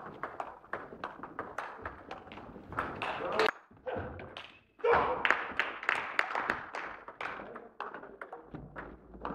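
Table tennis ball clicking in quick succession off rubber-faced rackets and the table during a rally. The sound drops out for about a second a few seconds in, and voices are heard under the clicks.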